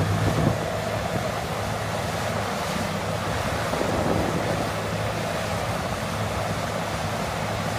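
Cat 6015B hydraulic mining excavator's diesel engine running steadily as it digs, a low hum under heavy wind noise on the microphone.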